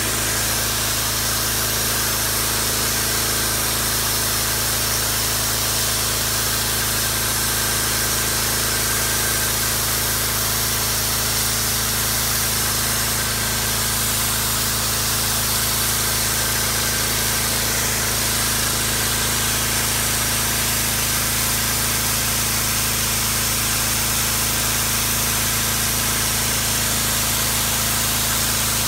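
Generac 2500 PSI pressure washer running steadily under load, with the hiss of its high-pressure spray striking concrete from the wand's nozzle.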